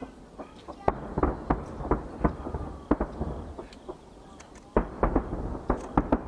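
Aerial fireworks shells bursting in rapid volleys of sharp bangs. One run starts about a second in, there is a short lull, and a denser run begins about five seconds in.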